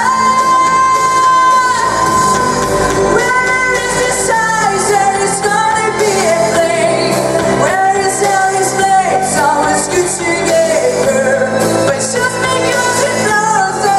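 A girl singing a pop ballad over a backing track, holding long notes that swoop from one pitch to the next.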